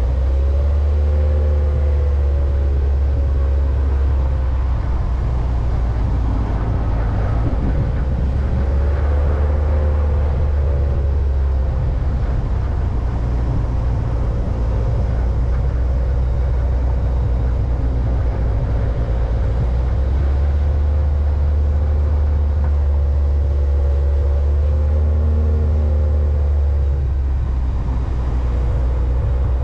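Vehicle engine running under way, its pitch rising and falling every few seconds with the throttle, over a steady low rumble of road and wind noise.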